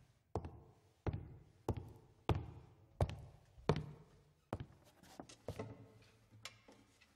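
A slow series of about ten sharp knocks, roughly one every two-thirds of a second, each ringing out briefly before the next; faint steady tones come in near the end.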